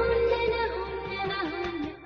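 Background music: a long held, slightly wavering melody note over a steady low bass.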